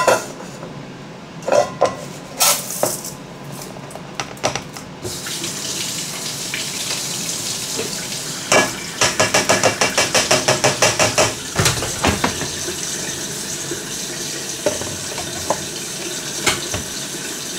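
Kitchen tap running into the sink while rice is rinsed in a strainer, with knocks and clinks of dishes. The water comes on about five seconds in, and midway there is a fast rattle of about seven clicks a second lasting some three seconds.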